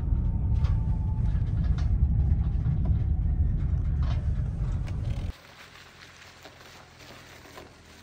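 Steady low rumble of a vehicle driving, which cuts off abruptly a little past five seconds in, leaving a quiet background with a few faint clicks.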